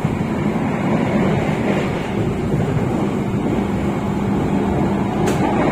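Steady rumble of the Argo Bromo Anggrek passenger train running along the line, with one brief click near the end.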